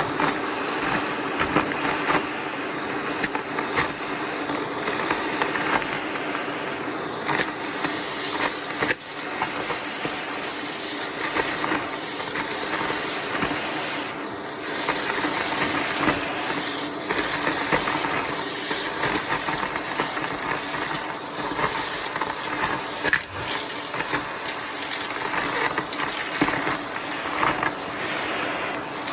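Vacuum cleaner running with its crevice tool, with frequent crackling and clicking as crunchy debris is sucked up.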